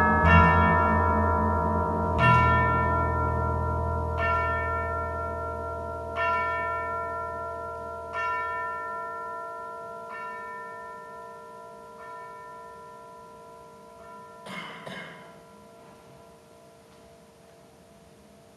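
A bell-like metal percussion instrument struck about every two seconds, each stroke ringing on and softer than the last, over a low drum resonance that dies away. Near the end there is a brief rustle, then only the faint last ringing.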